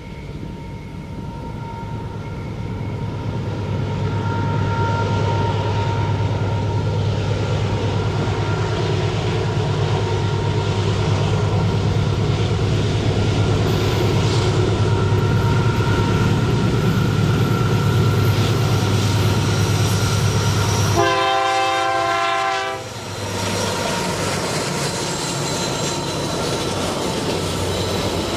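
Diesel locomotives hauling a double-stack container train approach and pass, the engine rumble building over the first few seconds and then holding steady. About three quarters of the way through the locomotive horn sounds once for under two seconds, after which the container wagons roll past with a lower, steady rumble and clickety-clack.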